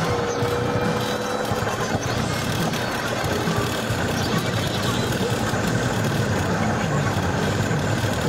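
Steady road and engine noise of a car driving fast on a highway.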